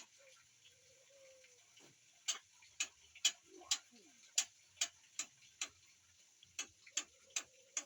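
A series of sharp, irregular clicks, about a dozen, starting about two seconds in at roughly one to two a second, with a faint soft whistle in the first second and again near the end.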